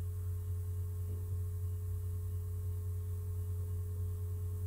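Steady low electrical hum with a thin, steady higher tone above it, unchanging throughout: background noise of the recording setup.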